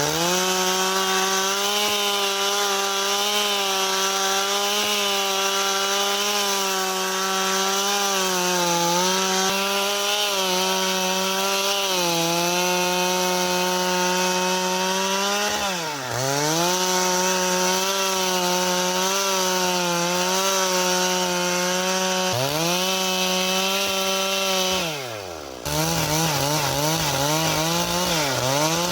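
Stihl two-stroke chainsaw running at high revs while cutting through wooden beams. The engine note dips and recovers twice, falls away about 25 seconds in, then comes back with uneven up-and-down revving near the end.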